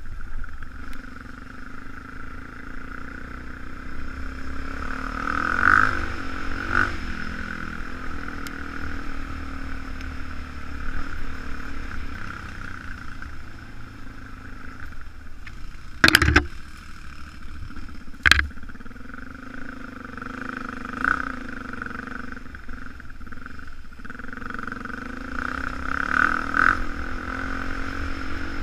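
Dirt bike engine running under way on a trail, its pitch rising and falling as the throttle is worked, with a low wind rumble on the microphone. Two sharp knocks about two seconds apart come a little past the middle.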